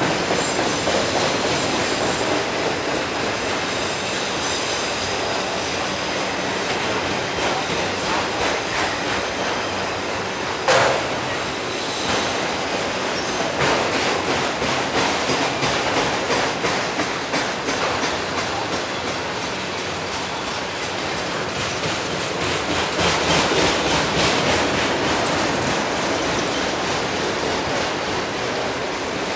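Freight train of autorack cars rolling past close by: a steady rush and rumble of steel wheels on rail, with stretches of rhythmic clicking as wheelsets cross rail joints. A thin high wheel squeal sounds in the first few seconds, and one sudden loud noise comes about eleven seconds in.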